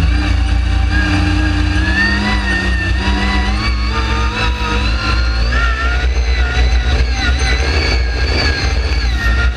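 Dune buggy engine running under load as the buggy drives over sand, its pitch rising and falling several times with the throttle. A heavy, fluttering rumble of wind buffeting the camera microphone lies under it.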